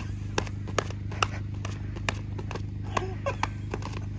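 Footsteps crunching on fresh snow as a person runs and hops about, about two to three sharp steps a second, over a steady low hum.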